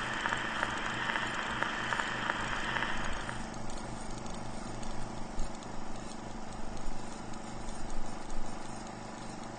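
Film-projector sound effect: a fast, even clatter under a steady hiss, the hiss dropping away about three seconds in.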